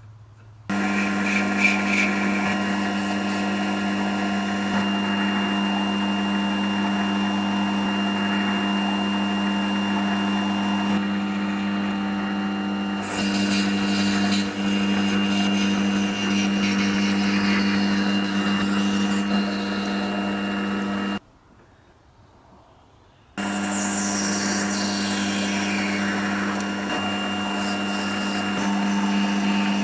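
An electric power tool's motor running at a steady speed with a steady hum. It starts abruptly about a second in, drops out for about two seconds past the middle, then runs again, with brighter scraping noise at times.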